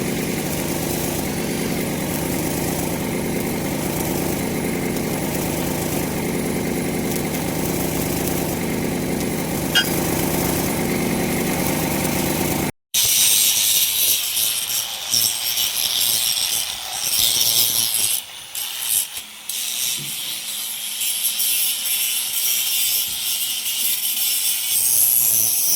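An engine runs steadily. After a sudden cut about halfway through, it gives way to a loud, uneven hissing and grating noise of metal being worked, which rises and falls in bursts.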